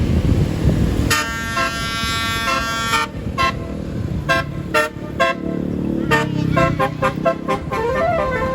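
Bus 'telolet' multi-tone melody air horn sounding: a chord of several tones held for about two seconds, then a string of short toots, then a quick tune of short notes at changing pitches. Wind noise on the microphone in the first second before the horn starts.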